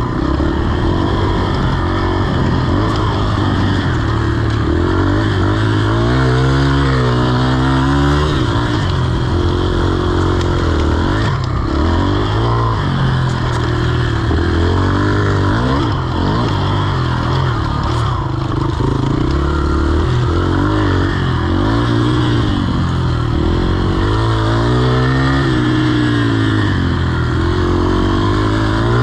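Yamaha TT-R125's single-cylinder four-stroke engine ridden hard, its pitch rising and falling again and again as the throttle is opened and closed.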